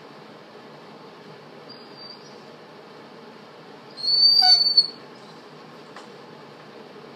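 A crated dog giving one short, high-pitched whine just under a second long, about four seconds in, over steady background hiss.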